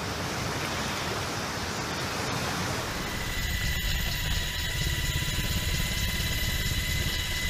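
Fast-flowing floodwater rushing, then, about three seconds in, the sound inside a helicopter cabin: a rapid rotor beat with a steady high whine from the turbine.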